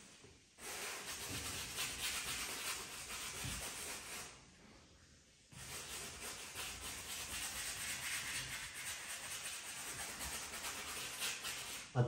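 Flat bristle brush scrubbing oil paint onto stretched canvas: a dry, scratchy rubbing in two spells of strokes, with a short pause a little past a third of the way in.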